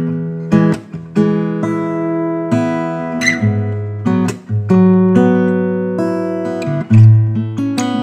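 A GWG Guitars Black MAHO 00 acoustic guitar played with a pick: chords are struck and left ringing, with a new chord every half second to a second. The hardest strike comes about seven seconds in.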